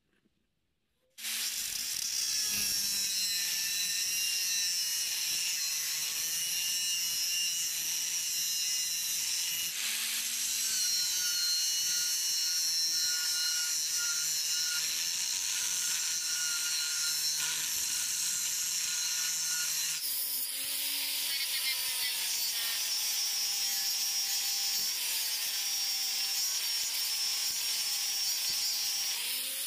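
Angle grinder with an abrasive cut-off disc cutting through a steel bar: a steady, loud, high-pitched grinding that starts about a second in.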